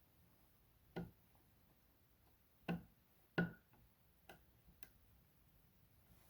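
A few light clicks and taps of a screwdriver and small parts against the metal of an old bench vise during reassembly, five in all, irregularly spaced, the loudest about three and a half seconds in.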